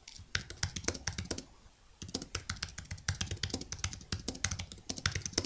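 Typing on a computer keyboard: a fast run of key clicks, a short break about one and a half seconds in, then steady typing again.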